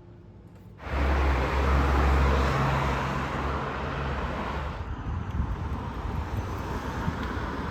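A vehicle's low engine rumble with road or wind noise. It starts abruptly about a second in, is loudest for the next few seconds, then eases a little.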